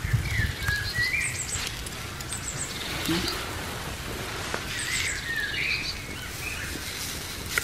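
Wild birds singing in short whistled phrases with high chirps, over a steady hiss and crackle from a wood campfire with food cooking on a hot slate.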